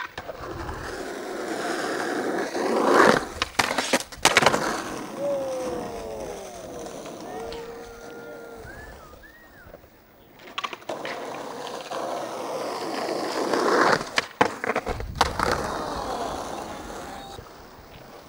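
Skateboard wheels rolling on concrete. The sound builds twice, each time ending in a cluster of sharp clacks of the board hitting the ground: about three seconds in and again about fourteen seconds in.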